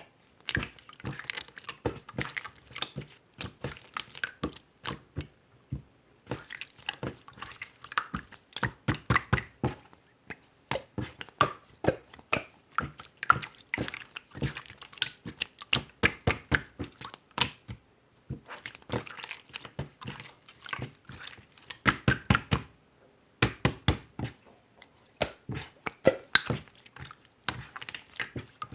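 Slime being squished and poked by hand, making a dense run of sticky clicks and pops in bursts, with brief pauses between them.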